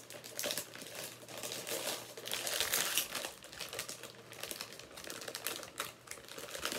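Small plastic bag of Ruffles All Dressed potato chips crinkling as it is handled and opened, an irregular crackle that is loudest about two to three seconds in.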